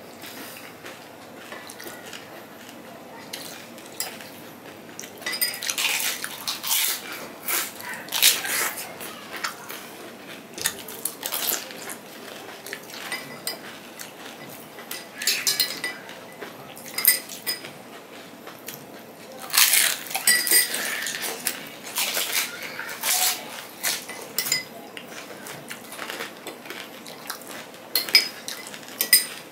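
Spoons clinking and scraping against glass bowls and plates, mixed with people crunching and chewing crisp velpuri shells, in irregular bursts.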